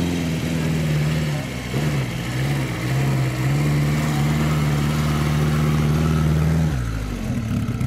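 Vintage car engine running under throttle at steady revs. The note wavers up and down about two seconds in, then drops away sharply near the end.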